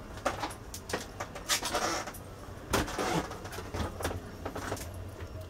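Irregular knocks, clunks and rustles of people moving about and handling things inside a small boat's wheelhouse, over a faint low steady hum.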